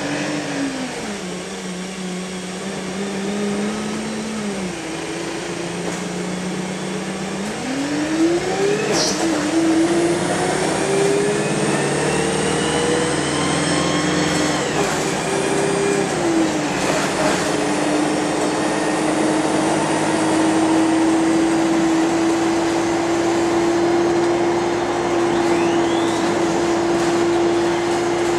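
Wright StreetLite single-deck bus's diesel engine and driveline heard from inside the passenger saloon while driving, over road noise. The engine note falls about a second in, dips again near five seconds, and climbs from about eight seconds in as the bus accelerates. It drops around sixteen seconds and then holds steady.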